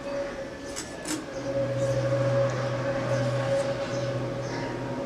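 Crisp snaps of green vegetable stalks being cut on a boti's curved iron blade, two of them about a second in. A steady low hum runs underneath, dropping out briefly near the start.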